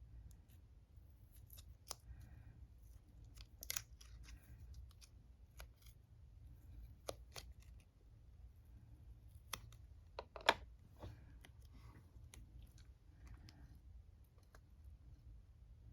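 Faint scattered clicks, ticks and light rustles of a watercolour paint set and its wrappings being handled, with a sharper click about ten and a half seconds in.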